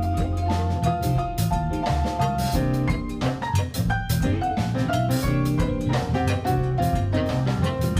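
Band playing an instrumental blues passage: drum kit keeping a steady beat under a walking bass line, with a lead instrument holding long notes that breaks into a run of quicker notes about halfway through.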